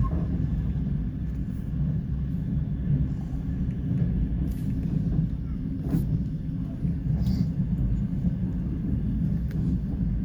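Passenger train running along the track at speed: a steady low rumble with a few sharp clicks.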